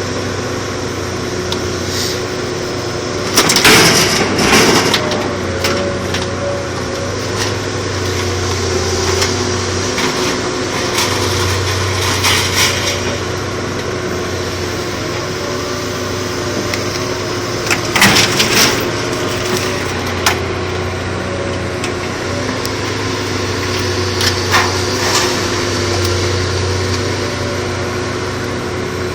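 A machine running steadily with a low pulsing throb, broken three times by short loud cracking crashes.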